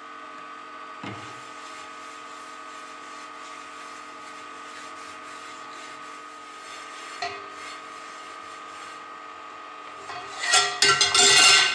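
Cloth rubbing a thin coat of linseed oil over a hot cast-iron skillet for seasoning, a quiet steady scrubbing over a constant hum. Near the end a loud metallic clatter as the skillet is moved on a steel wire trivet.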